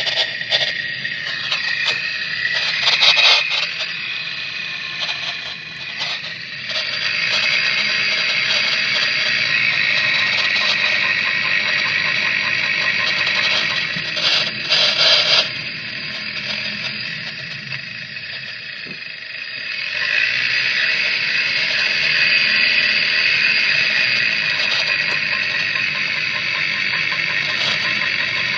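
Driveline noise from a 2016 Mitsubishi Outlander picked up at the CV axle support bracket: a steady rushing drone with a few sharp knocks. The owner traces the noise to the support bracket, and it is still there after the axle was replaced.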